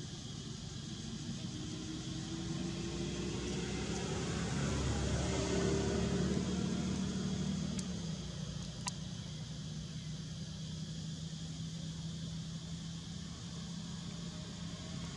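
A motor vehicle engine going by off-camera. Its hum swells to loudest about halfway through with the pitch slowly rising, then settles into a steady lower drone. There is a single sharp click about nine seconds in.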